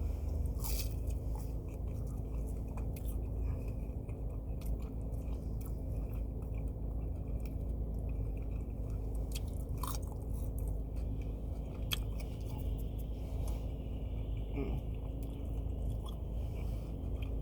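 Close-up chewing of fried chicken nuggets, with scattered small crunches and mouth clicks, over a steady low hum.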